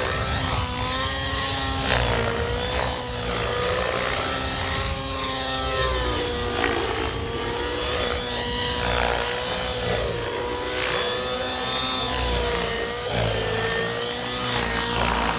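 Radio-controlled 3D helicopter flying aerobatics: a steady high whine from the rotor drive that wavers slightly in pitch, with the blades whooshing in repeated swells as it flips and turns.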